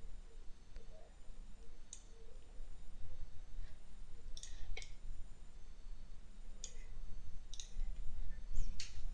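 Computer mouse clicking: about seven separate sharp clicks, some in quick pairs, over a low steady hum.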